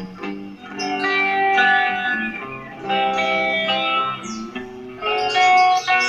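Cort CR200 Les Paul-style electric guitar played through laptop amp software and a small cheap speaker, picked phrases of notes ringing into one another. The tone is somewhat rough from the tiny speaker.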